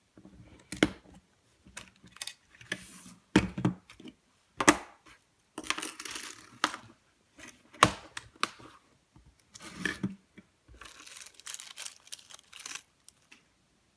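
Metal toy model of a Colt M1911A1 pistol being handled: sharp metal clicks and knocks at irregular intervals, with stretches of scraping and sliding between them.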